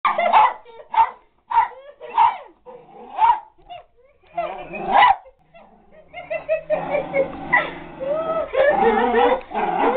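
Small dog barking: a string of short, sharp barks about a second apart through the first half, followed by people talking and laughing.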